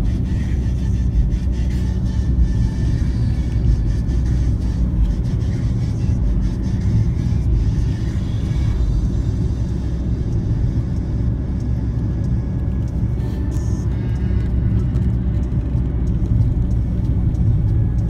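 Steady low rumble of a car's engine and tyres, heard from inside the cabin while driving at road speed.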